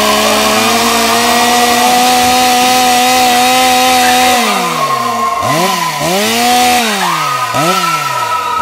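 Chainsaw engine running at high revs, held steady for about four seconds, then throttled down and revved up again several times, its pitch falling and rising with each blip.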